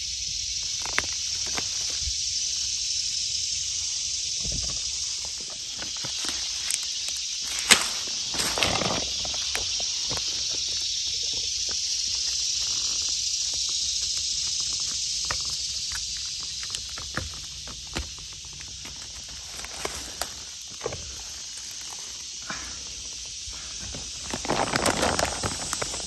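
A steady high-pitched drone of insects swells and eases in the woods. Over it come scattered small clicks and rustles as a knife cuts golden oyster mushrooms from a log and hands move through leaf litter. Near the end there is a quick run of rustling steps in dry leaves.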